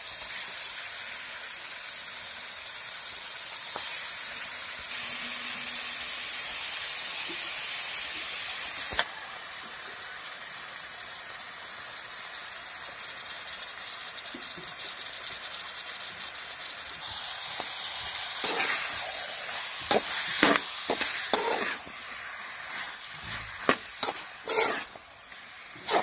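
Raw chicken pieces sizzling in hot oil with onions in a metal wok: a steady hiss that drops suddenly to a quieter sizzle about a third of the way in. In the last several seconds a flat metal spatula scrapes and clatters against the wok as the chicken is stirred.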